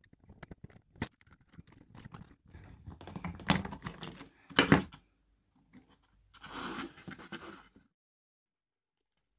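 Small clicks and crunches of a hand tool cutting the wires inside a GU10 bulb's plastic housing and prying its driver board loose, with the loudest sharp snap a little under five seconds in. A short rustle of handling follows a couple of seconds later.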